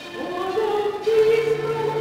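Church music with long held notes; a lower sustained note comes in and the music gets louder about a second in.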